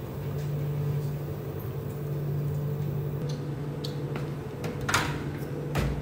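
Steady low electrical hum of the drink vending machines' cooling units, with two light knocks near the end.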